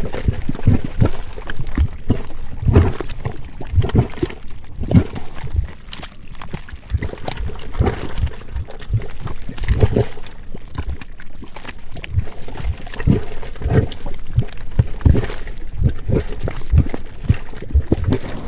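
A geothermal pool boiling, with a quick, irregular run of deep bubbling plops and gurgles.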